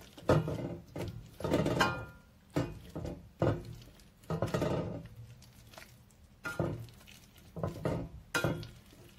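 Metal potato masher pressing and scraping boiled ube in a stainless steel saucepan: irregular knocks and scrapes of metal against the pan, some with a brief ring, about one or two a second.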